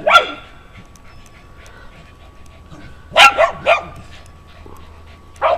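Dogs barking sharply while fighting a skunk: one bark at the start, a quick run of three barks about three seconds in, and another bark near the end.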